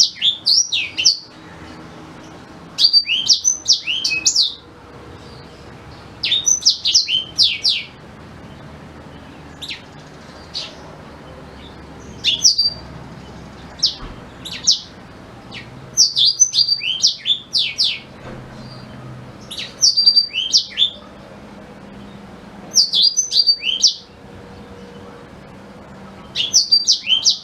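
Blackthroat (black-throated canary) singing: short phrases of quick, high twittering and sweeping notes, repeated every few seconds with brief pauses between.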